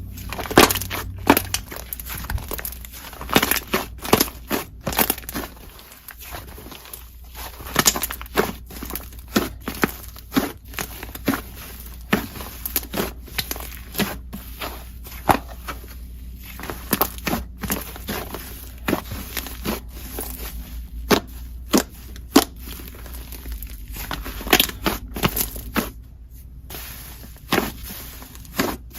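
Slime being squeezed, pressed and poked by hand, making a run of irregular sticky crackles and clicking pops, with a short lull near the end.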